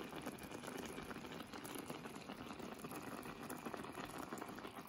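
Bitter orange peel boiling in thick sugar syrup in a stainless steel pan on low heat, near jam consistency: a steady crackle of many small bubbles.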